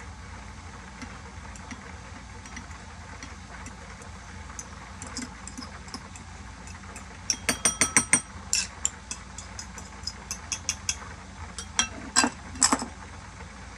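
A spoon tapping, clinking and scraping against bowls as mashed egg yolk is scraped from a small bowl into a bigger one. A quick run of taps comes about halfway through, then scattered clinks, with a few more near the end, over a low steady hum.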